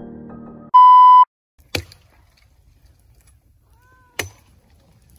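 Piano music cuts off, then a single loud electronic beep: a steady pure tone about half a second long. Two sharp clicks follow, about two and a half seconds apart, over a faint low rumble.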